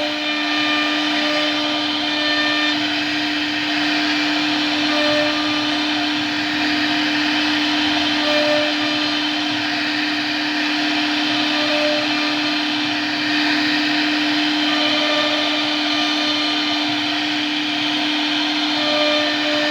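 CNC router spindle running steadily with a constant whine and a rushing noise, with short higher tones coming and going as the machine moves.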